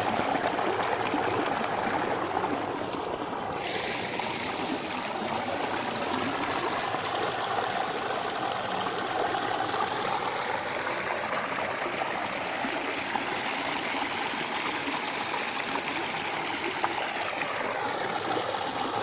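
Water flowing steadily along a falaj irrigation channel, a continuous rushing trickle. The brighter part of the rush dulls briefly and comes back sharply about four seconds in.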